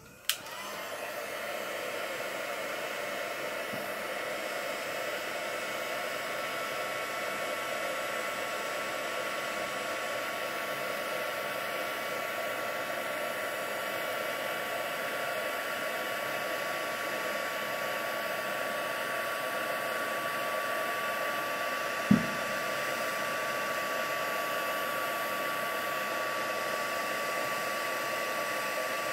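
Embossing heat gun switched on, spinning up and then blowing steadily: a fan-like hiss with a steady whine, melting embossing powder on a stamped card. One sharp knock about three-quarters of the way through.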